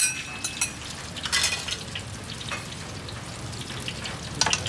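Hot oil sizzling in a large wok as cucur sayur vegetable fritters deep-fry, with several sharp clinks of a metal ladle-mould, near the start, about a second and a half in, and again near the end.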